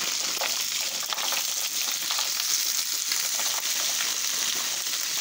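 Pelmeni sizzling steadily in melted butter in a frying pan as they are poured in from a plastic bag, with scattered small clicks as the dumplings drop onto the pan.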